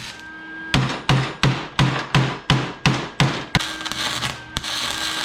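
About nine quick hammer blows on sheet-metal fender pieces, roughly three a second, then the steady crackle of an electric welder tack-welding the fender together.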